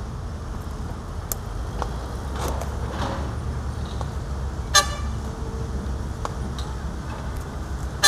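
Diesel construction machinery (an excavator and dump trucks) running with a steady low rumble. A short vehicle-horn toot sounds a little before halfway, and another comes right at the end.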